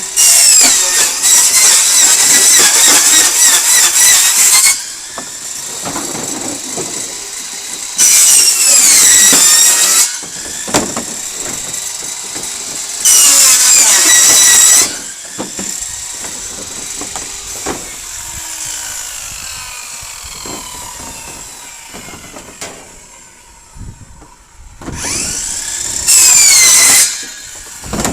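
Circular saw run on DC at about 91 volts through a converter, which it runs a little slower than on 120 volts. It cuts in four loud passes, each ending in a falling whine, with quieter running between the cuts.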